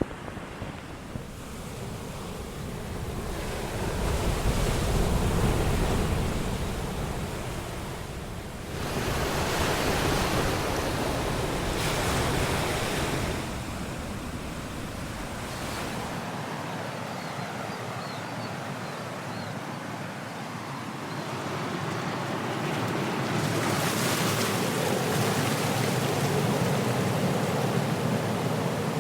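Ocean waves surging and washing in, the rushing noise swelling and falling back every few seconds. Past halfway the deep rumble under the waves drops away.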